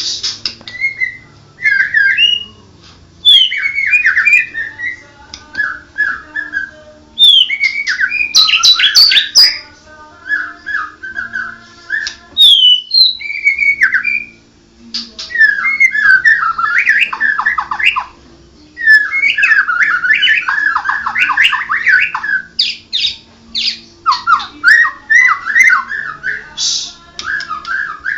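White-rumped shama (murai batu) singing: bursts of loud, quickly changing whistled phrases and chattering notes, broken by short pauses of about a second.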